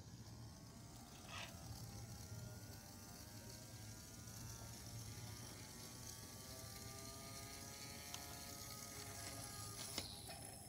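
Battery-powered electric spin-up motor of a Super Precision gyroscope whirring as it spins the rotor up, its pitch climbing steadily and then levelling off. It stops with a click near the end.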